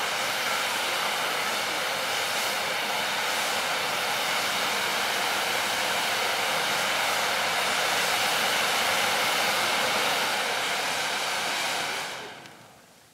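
Pyrotechnic ground fountains (gerbs) spraying sparks with a steady hiss that fades out near the end.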